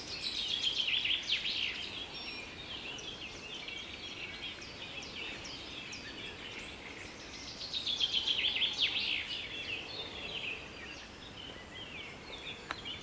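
Wild birds singing, a chorus of many quick descending chirps and trills. The chorus is busiest at the start and again about eight seconds in.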